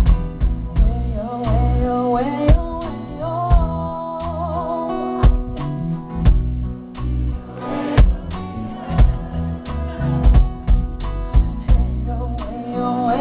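Live band music with a steady drum beat and heavy bass under a singer's drawn-out, wordless vocal line, which carries the first few seconds and returns near the end. The sound is muffled, with no treble, as recorded by a camera's built-in microphone.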